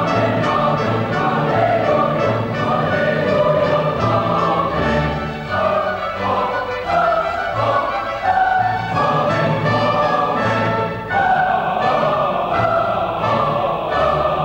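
Boys' choir singing a classical choral piece in full harmony with orchestral accompaniment, in long held phrases with short breaks about halfway through and again about three-quarters of the way through.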